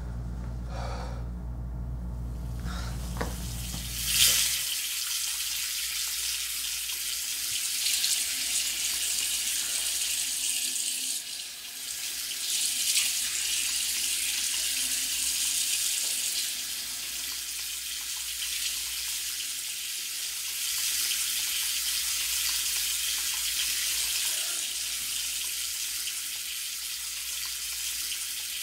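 A low hum, then about four seconds in a sharp click as a bathroom tap starts. Water runs steadily from the tap into a sink basin, its sound shifting a little now and then.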